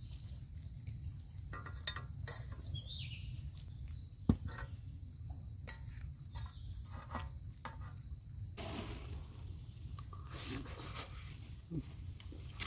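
Spoon stirring balut eggs in a steel wok: scattered clicks and scrapes over a steady low rumble, with one sharp clink a little past the middle of the first half.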